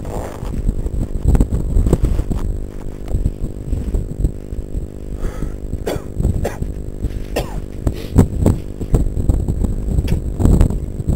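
Dirt bike engine idling steadily, with irregular knocks and thumps over it.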